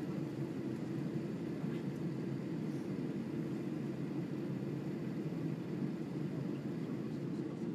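Steady low rumble inside the cabin of an Airbus A321 taxiing, its jet engines at low taxi power with no spool-up. The level stays even throughout.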